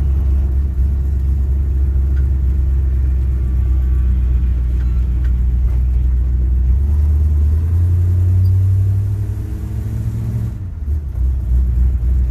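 1967 Chevy C10 pickup's engine heard from inside the cab while driving: a steady low drone that climbs in pitch about seven seconds in, then drops away briefly near the end before picking back up. The automatic transmission is not upshifting, so the engine keeps pulling in low gear.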